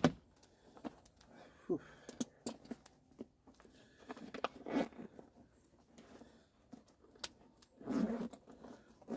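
Rummaging through a camouflage fabric pack: scattered rustles of the bag's fabric and short clicks of its contents being moved, with a louder burst of handling about eight seconds in.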